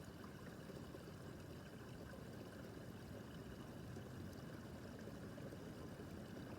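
Small brook babbling steadily, water trickling and splashing over stones, soft and even.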